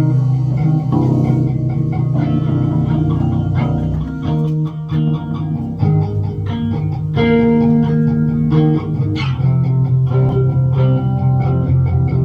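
Band music led by electric guitar over a steady bass guitar line, with no singing: a run of picked guitar notes over low bass notes that change every second or so.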